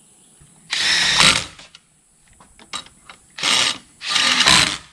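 Handheld power driver spinning bolts in three short bursts: one about a second in, then two close together near the end, fastening the mounting plate to an electric-car drive unit.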